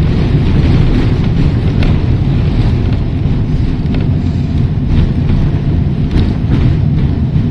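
Heritage electric tram running along the line, heard from on board: a steady low rumble of the car and its wheels on the rails, with a few faint clicks and knocks.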